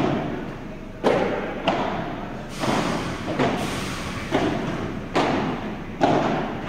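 Padel rally: about eight sharp hits of the ball off paddle rackets and the court, roughly one a second, each ringing out briefly in a large indoor hall.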